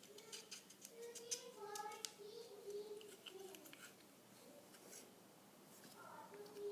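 Faint clicks and taps of hands handling plastic Play-Doh tools and dough, with a faint voice in the background now and then.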